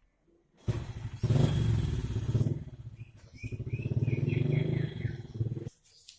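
A motor or small engine running loudly with a fast, even pulse, in two stretches with a short dip between, cutting off suddenly near the end.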